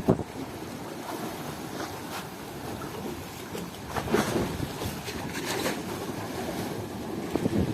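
Wind buffeting the microphone over the wash of sea waves, with louder gusts at the start and about four seconds in.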